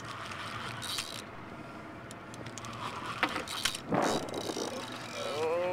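Spinning reel being cranked under load while a fish is fought on the line, with scattered clicks and a short burst of noise about four seconds in. A drawn-out voice starts near the end.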